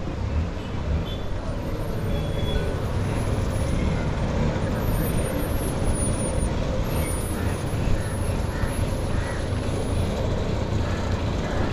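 Street noise dominated by a motor vehicle's engine running close by, a steady low rumble that does not rise or fall, with faint voices beneath it.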